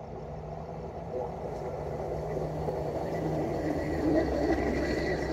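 Engine of a rail maintenance vehicle drawing nearer on the track, growing steadily louder. A faint, steady high tone joins about three seconds in.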